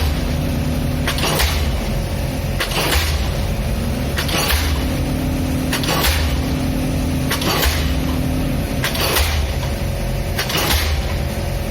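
Pile driver at work, a sharp strike on the pile about every second and a half over the steady running of its engine.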